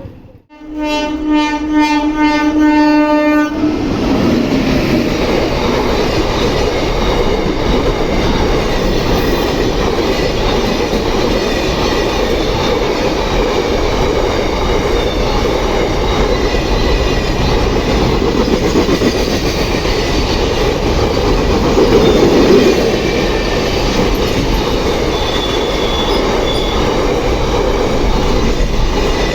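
Locomotive horn sounding one steady blast of about three seconds. Then a freight train rolls past with steady wheel-on-rail noise.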